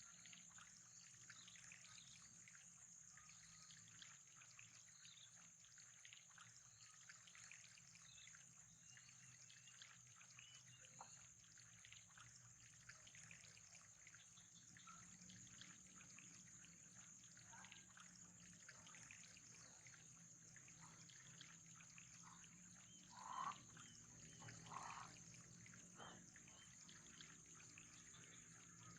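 Faint trickling water with a steady high hiss, and two brief louder sounds near the end.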